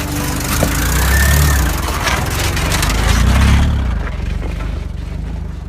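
Jeep Wrangler driving on a dirt road: the engine runs under load and swells louder about a second in and again around three seconds in. It runs over a broad rushing noise that eases off about four seconds in.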